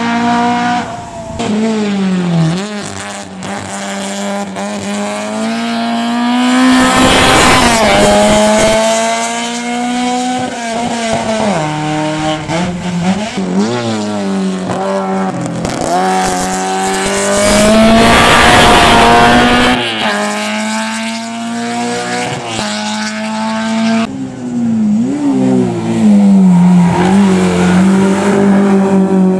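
Race car engine running hard up a hillclimb, its pitch climbing and dropping again and again as it revs through the gears. It is loudest, with a rushing edge, around seven and eighteen seconds in.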